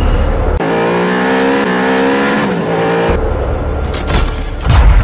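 Electronic music: a repeating melody of held notes that step up and down in pitch over a heavy low rumble, which cuts off sharply about half a second in and returns about three seconds in.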